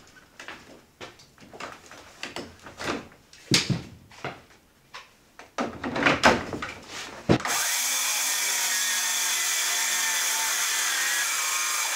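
Several knocks and clicks of a tool being handled, then about seven and a half seconds in a cordless power tool starts abruptly and runs at a steady, even speed for about four and a half seconds, on a freshly swapped battery.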